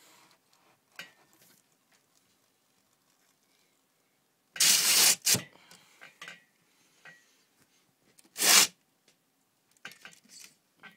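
Two loud, short scraping bursts, about four and a half and eight and a half seconds in, with a few faint clicks and taps between them.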